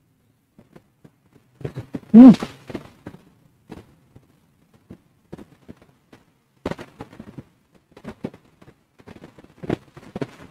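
Close-up eating sounds: spoon and fork clicking against a metal plate, with chewing and slurping of fried noodles as short scattered ticks. A brief, loud vocal sound comes about two seconds in.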